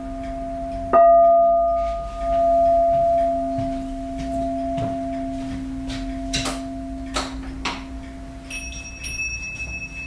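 A Wenchang tower (文昌塔) ornament being struck and left ringing: a low steady ringing hum under a loud clear strike about a second in, a few light taps past the middle, and a higher, brighter ring near the end.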